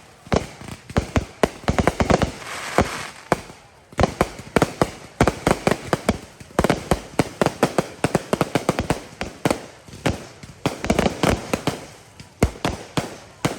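Fireworks going off in a rapid, irregular barrage of sharp bangs, several a second, with brief lulls about four seconds in and near the end.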